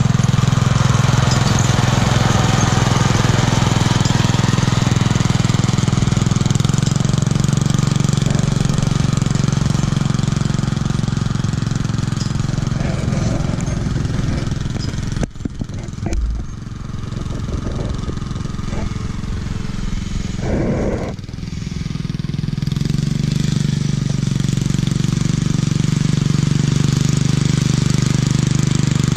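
Homemade garden tractor's engine running through its homemade muffler while it plows snow. The engine fades in the middle as the tractor moves off, then grows louder again as it comes back.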